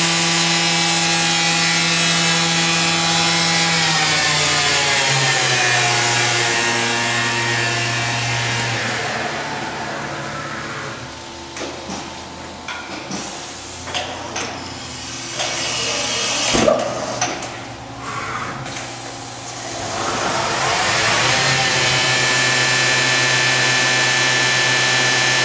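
Fadal VMC 4020A CNC machining center's spindle running with a steady whine at 10,000 RPM, then winding down in pitch over several seconds. A quieter stretch of clunks and clicks from the machine follows, with one sharp knock in the middle, and the spindle then spins back up to a steady whine near the end.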